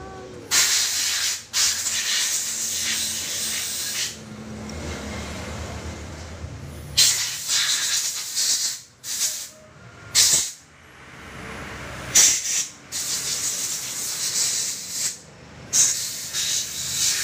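An aerosol spray can hissing in repeated bursts, some a few seconds long and some brief.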